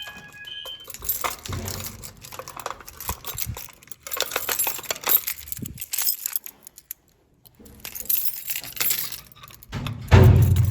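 A fire alarm horn's last short blast cuts off under a second in. Then comes irregular metallic clinking and rattling, with a heavy thump near the end.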